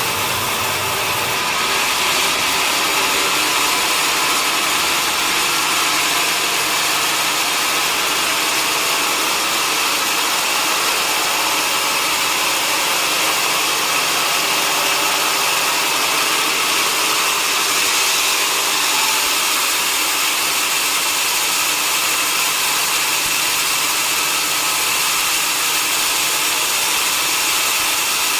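Sawmill saw running steadily, cutting through a large log, with a loud even rasping noise and no pause.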